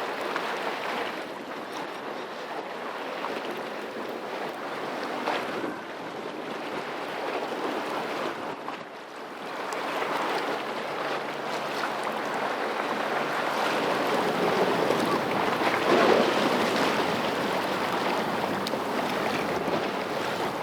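Harbour water and wind on the microphone: a steady rushing noise with a faint low hum, growing louder in the second half.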